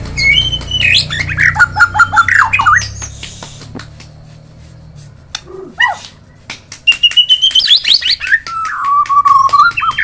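White-rumped shama singing in bursts of varied whistled phrases with rising and falling notes, mixed with many sharp clicks. The song pauses briefly near the middle, then resumes with quick rising notes and a held whistle near the end.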